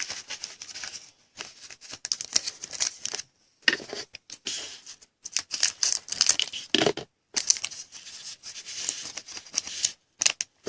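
Trading-card packs and cards being handled: plastic pack wrappers crinkling and tearing, with cards sliding against each other, in irregular bursts with short pauses.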